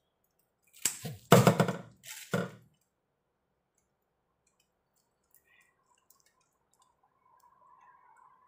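A quick cluster of clicks and cracks in the first two or three seconds, from raw prawns being cleaned and deveined by hand at a kitchen sink.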